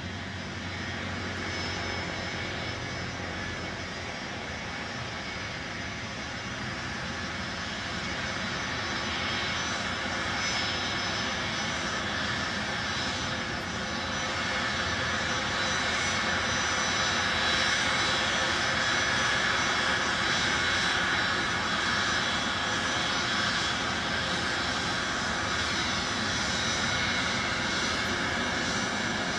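Boeing 747 Classic's four turbofan engines running, a broad rush with steady high whining tones, growing gradually louder.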